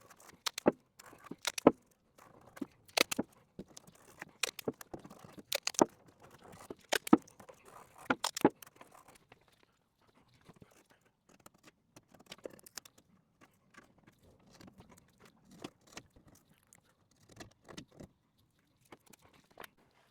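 Sped-up work sounds from a time lapse: quick, irregular clicks, knocks and clatter of hands and materials handled at the car body while a template is shaped over the bodywork. They are dense and loud in the first half, then sparser and fainter from about halfway.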